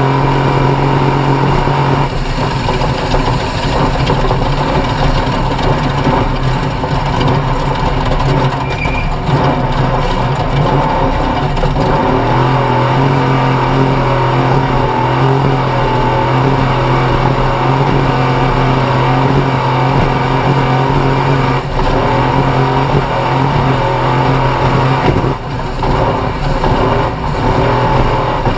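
Off-road race vehicle's engine running hard at high revs. Its pitch holds steady for long stretches, falls back about 2 seconds in, and picks up again near the middle. A constant rough noise with scattered knocks runs underneath.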